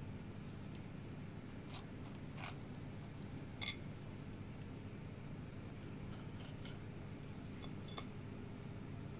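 A few faint clicks and scrapes of a knife and fingers against a plate as a stuffed cheese paratha is cut and handled, over a steady low hum.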